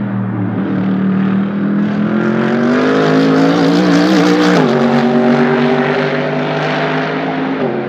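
Mercedes-AMG GT3 race car's naturally aspirated V8 under hard acceleration. The pitch climbs, loudest around four seconds in, then drops sharply with an upshift, climbs again and drops with another upshift near the end.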